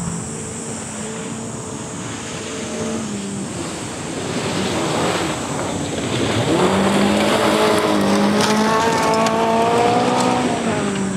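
Rally car engine revving hard and working through the gears on a gravel special stage, its pitch repeatedly climbing and dropping, growing louder about two-thirds of the way in. A few sharp clicks come near the end.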